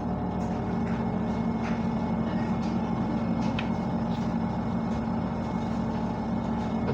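An electric cleaning machine's motor running steadily with a low hum, with a few light clicks and taps over it.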